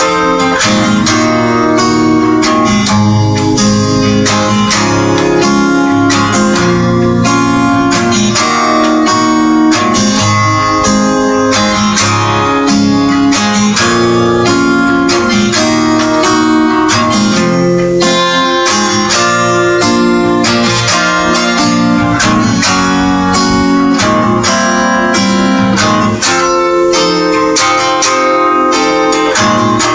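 Acoustic guitar music, an instrumental passage of quickly picked notes and strummed chords.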